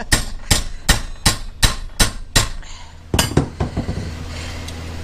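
Hammer blows on a steel rod being beaten tight around a pipe to bend it: a quick, even run of metal-on-metal strikes at about three a second, each ringing briefly. After a short pause come two more strikes, and then it stops.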